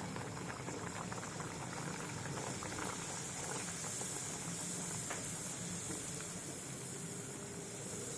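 A stuffed puri (radhaballavi) deep-frying in hot oil: a steady sizzle and bubbling of the oil around the dough.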